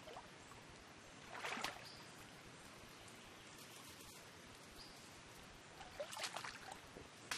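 Faint trickle of a shallow stream, with two short scuffling bursts, about a second and a half in and again about six seconds in, as a hand digs into a crab burrow in a wet, muddy bank.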